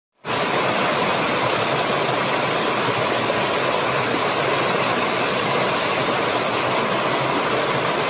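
Water of a small rocky stream rushing and splashing down over stones in little cascades, a steady, even rush.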